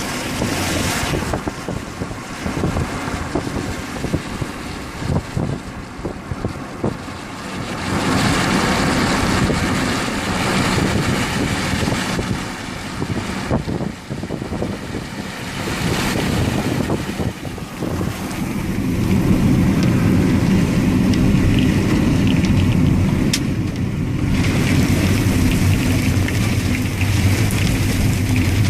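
Wind gusting hard across the microphone in uneven surges, with a steady low hum joining in about two-thirds of the way through.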